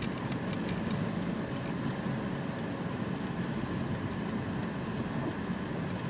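Steady low road and engine noise of a car driving on a snow-covered highway, heard from inside the cabin, with a few faint clicks in the first second.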